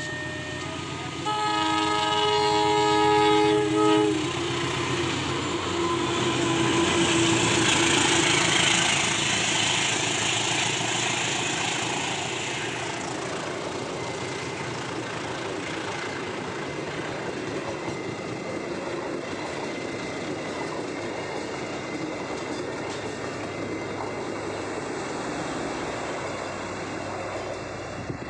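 Diesel locomotive sounding its horn, a chord of several steady tones, for about three seconds. The train then runs past, loudest a few seconds later, followed by the steady rumble and clatter of its cars rolling on the rails.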